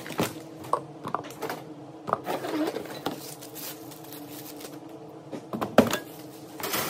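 Cardboard cartons being pulled and slid around in a shipping box, with rustling and scraping and irregular knocks as the garden cart's steel brackets are handled; one louder clunk a little before the end.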